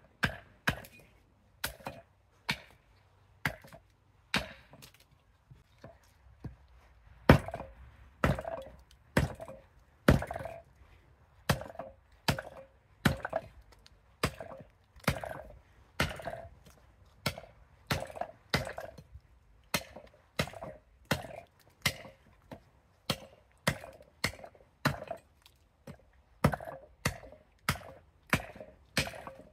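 Fadir 860 g carving axe chopping a green ornamental cherry spoon blank on a wooden chopping block: a steady run of sharp chops, about one and a half a second, each with a short woody ring. The chopping pauses briefly about five seconds in.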